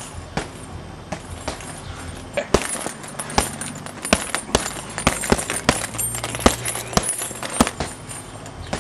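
Gloved punches landing on a hanging heavy bag: a quick, irregular run of sharp thuds, about two a second and coming faster after the first couple of seconds, with the bag's hanging chain jingling.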